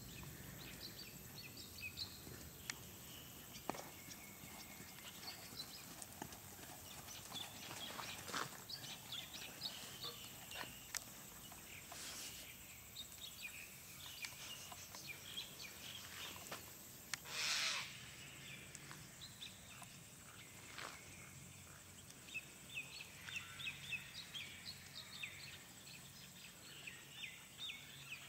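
A horse working on a sand arena, its hoofbeats faint soft thuds, over a quiet background of birds chirping. One short, louder rush of noise about seventeen seconds in.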